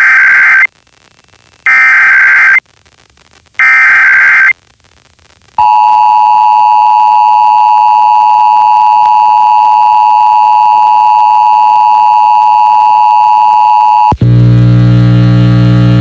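Emergency Alert System signal over FM radio. First come three one-second bursts of SAME header data tones, about a second apart. Then the two-tone EAS attention signal sounds as a steady dual-tone beep for about eight and a half seconds, and it cuts off to a low buzzing sound near the end.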